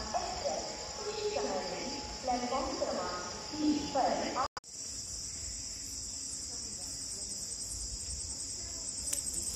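Crickets chirping in a steady high-pitched drone throughout, with voices talking over them for the first four seconds or so. After a sudden break about four and a half seconds in, the crickets go on alone over a faint low rumble.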